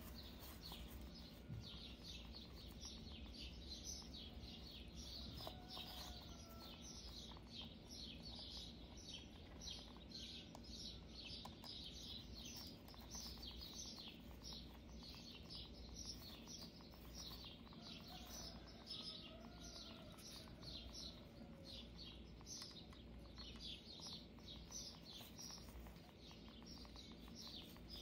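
Faint birds chirping: a steady run of short high chirps, several a second, with a few softer lower whistled glides now and then.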